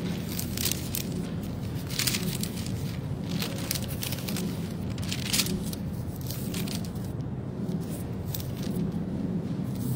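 Paper rustling and crackling in irregular bursts as pages are leafed through close to a clip-on microphone, over a steady low room hum.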